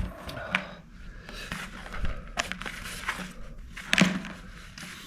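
Irregular handling noises: light clicks, scrapes and rustles of objects being moved about on a work surface, with the sharpest knock about four seconds in.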